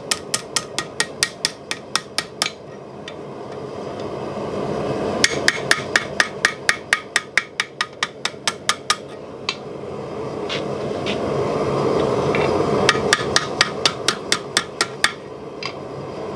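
A small blacksmith's hammer taps red-hot steel over the anvil horn to open up and round the eye of a forged bottle opener. The strikes come in three quick runs of light blows at about four a second. A rushing background noise swells between the runs.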